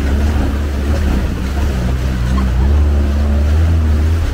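Off-road jeep engine running with a steady low drone as the jeep drives slowly along a shallow riverbed.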